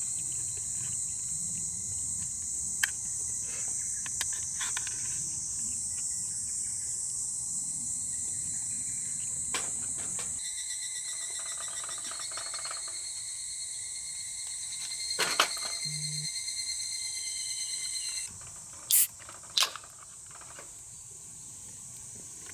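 Chorus of singing insects, a steady high-pitched shrill, with a few sharp clicks, two of them loud near the end.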